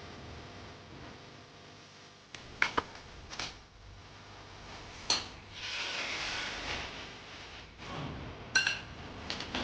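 Kitchen utensils clinking against dishes and pans: a scattering of sharp clinks, some ringing briefly, with a short hissing noise lasting about a second and a half in the middle.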